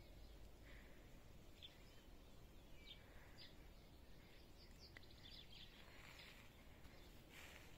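Faint songbirds chirping and trilling in scattered short calls, busier in the second half, over a low steady background hum.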